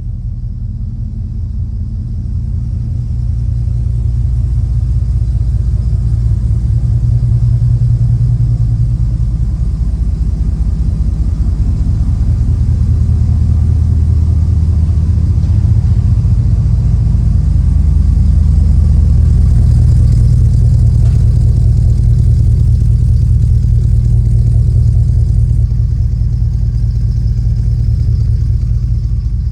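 Exhaust rumble from a Chevrolet with headers and an aftermarket cat-back exhaust, the engine running steadily. The deep rumble grows louder over the first few seconds and stays strong, easing slightly near the end.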